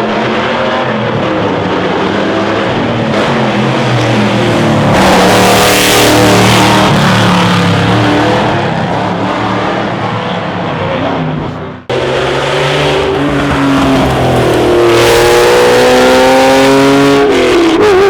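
Classic racing car engines under hard acceleration, the pitch rising and falling with gear changes. About twelve seconds in it cuts abruptly to another car whose engine note climbs steadily before dropping at a gear change near the end.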